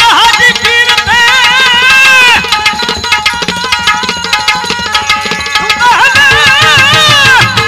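Devotional folk singing: a man's voice in two long, ornamented, wavering phrases over a tabla beat and steady held accompaniment tones.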